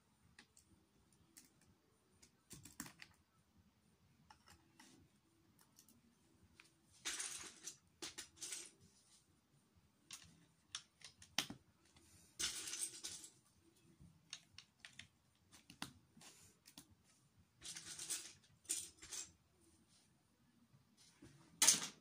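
Plastic Lego bricks being handled: scattered light clicks as pieces are picked up and fitted together, with a few rattling bursts of about a second as loose bricks are sorted through.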